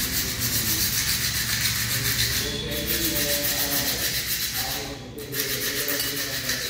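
A motorcycle's steel clutch plate being rubbed back and forth by hand on sandpaper: a steady scraping rasp, with a short break about five seconds in. The plates are being sanded to deglaze their hardened, slipping faces.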